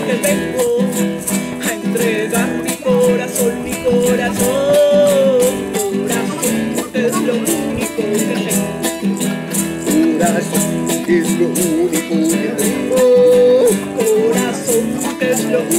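Background music: guitar with a wavering melody line over a steady beat of about three strokes a second.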